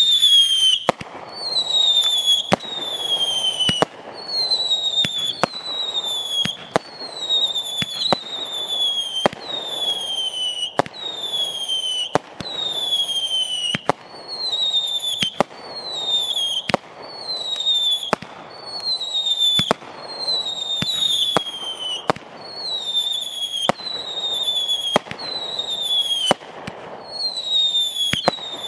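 Rizer Fireworks 'Weapons Hot' 500-gram repeater cake firing shot after shot, about one a second. Each shot is a sharp bang followed by a whistle that falls slightly in pitch, with a steady hiss beneath.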